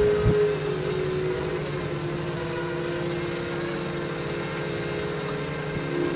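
Quadcopter's electric motors and propellers running in flight, heard from the camera mounted on it: a steady hum of several tones that shift a little in pitch as it manoeuvres.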